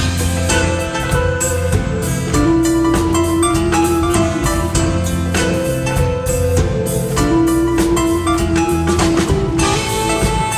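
A live jazz band playing, with saxophone, keyboards, electric bass and drums. There are long held melody notes over a steady beat.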